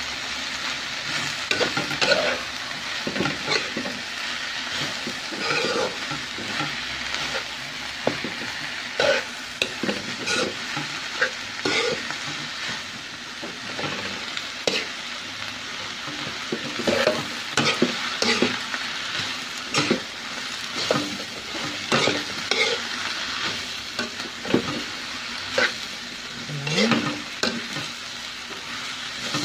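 Shredded cabbage sautéing in a pan: a steady sizzle, while a spatula stirs and tosses it, scraping and knocking against the pan at irregular intervals.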